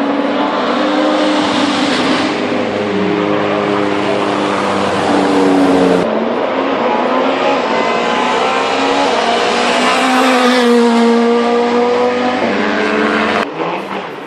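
Rally car engine at high revs, its pitch climbing and dropping as it shifts gears. The sound changes abruptly about six seconds in and again near the end.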